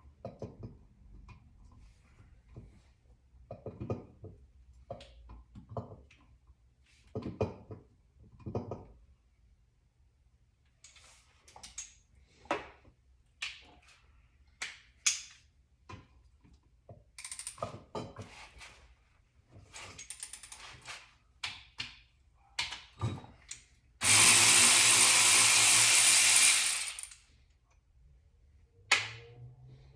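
Scattered metal clinks and knocks of tools on a power steering pump bracket, then a cordless 3/8-inch ratchet running for about three seconds, backing out a bracket bolt.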